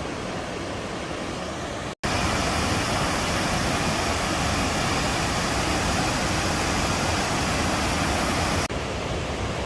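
Steady rushing of a waterfall. About two seconds in the sound cuts out for an instant and returns louder and fuller, then drops back to a softer rush near the end.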